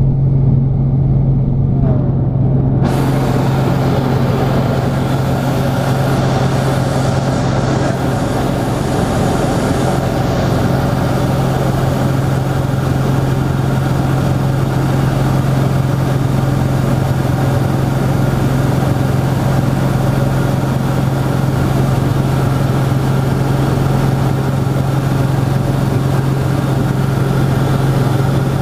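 Grob G115E Tutor's four-cylinder Lycoming engine and three-blade propeller droning steadily in flight, heard from inside the cockpit, with a strong low hum. About three seconds in, a hiss of rushing air comes in suddenly and stays.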